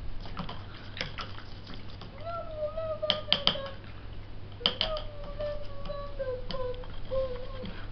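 A paintbrush rinsed in a plastic cup of water, clicking sharply against the cup several times and swishing in the water. A voice hums long, slowly gliding wordless notes in between.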